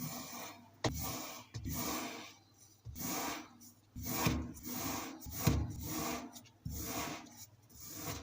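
Kinetic sand being dropped and squished: a run of irregular soft gritty crunches and rustles, a few of them starting sharply.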